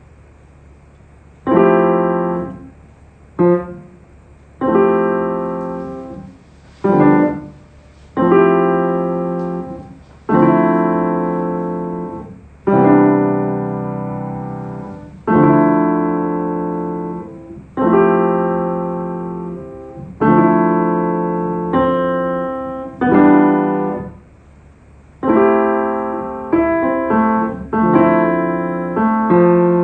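Piano chords played on a keyboard, struck about every two seconds, each left to ring and fade; the playing turns to quicker notes near the end.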